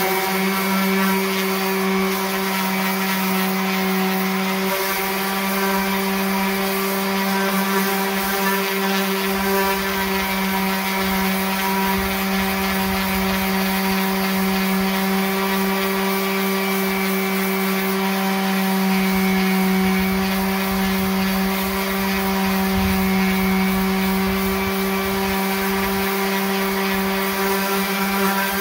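Electric orbital sander running at a steady speed, sanding paint and rust off a steel lawn mower deck: a constant, even-pitched hum with a gritty rasp from the pad on the metal.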